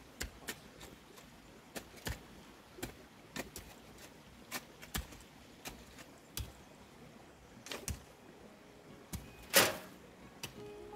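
Hand digging: a shovel and a hoe chopping and scraping into earth and stones in irregular strokes, with one louder knock near the end.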